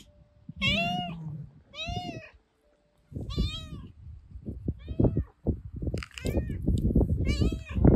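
Stray domestic cat meowing over and over: about six short meows, each rising and falling in pitch, with a short pause between the second and third. From about three seconds in, rustling and knocks run underneath the meows.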